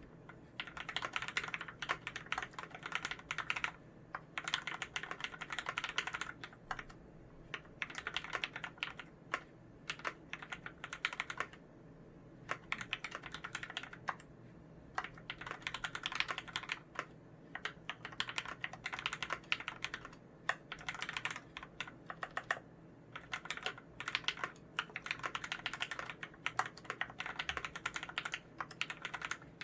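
Typing on a Varmilo VA108Mac mechanical keyboard with lubed Cherry MX Red linear switches, a steel plate, a plastic case and GMK Olive keycaps. Quick runs of key clacks are broken by short pauses.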